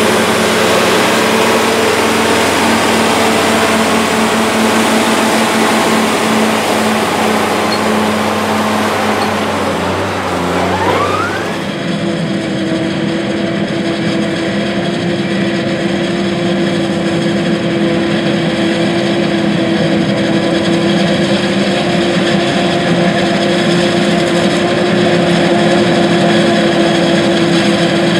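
A John Deere tractor's diesel engine running steadily under load as its front loader pushes chopped corn silage. About twelve seconds in the sound changes to a John Deere 8600 self-propelled forage harvester running steadily as it chops standing corn, with a steady hum from the machine.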